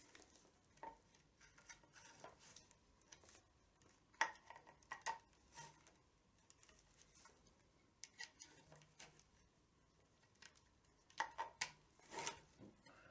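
Scattered light clicks and knocks, a few at a time with quiet gaps between, from a hook being worked on a tabla's leather badhi straps to pull them tighter.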